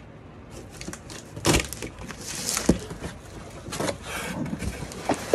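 Packing tape being ripped off a cardboard shipping box and its flaps pulled open: a run of irregular tearing and cardboard scraping sounds, the loudest rips about a second and a half and two and a half seconds in.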